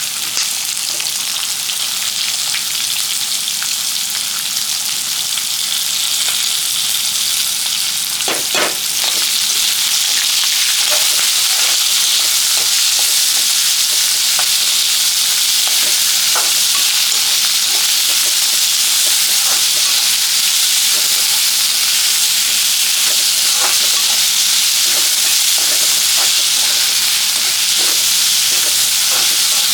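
Garlic cloves frying in hot oil in a kadai with peppercorns and cumin, sizzling steadily, with the scrape and knock of a stirring spoon now and then. A louder clatter comes about eight seconds in, after which the sizzling grows louder.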